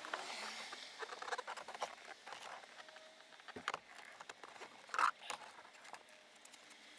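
A car seat being tipped back and lifted out of its floor mounting, its metal runners and frame giving scattered light knocks, rustles and scrapes, with a sharper knock about five seconds in.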